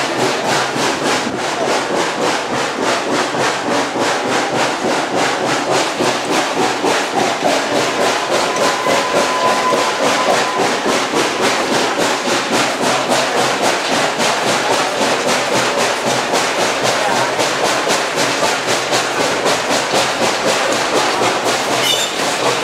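1916 2-6-2 Prairie-type steam locomotive No. 4 running with the train, its exhaust chuffing in a quick, steady beat over the running noise of the cars.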